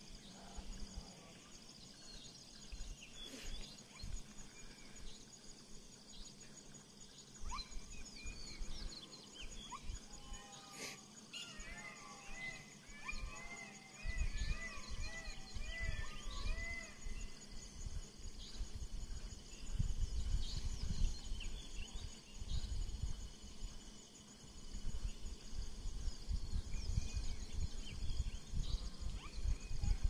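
Dusk forest ambience: a steady high insect buzz, a bird giving a run of short arched calls from about ten to seventeen seconds in, and faint low rumbling that grows stronger in the second half.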